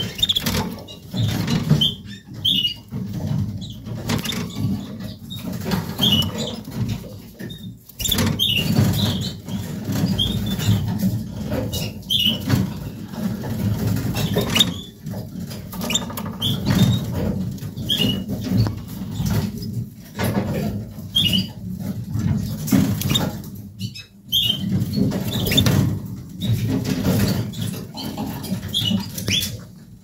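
Canaries giving short, high chirps at irregular intervals, every second or two, over a steady low background noise.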